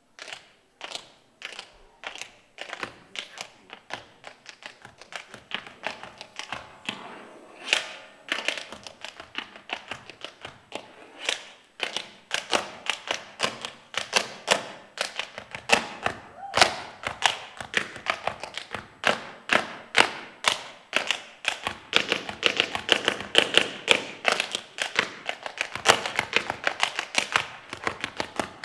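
Tap shoes striking a stage floor in a solo tap routine: crisp metal taps in shifting rhythms, sparse at first and quickening into dense rapid runs from about halfway, busiest near the end.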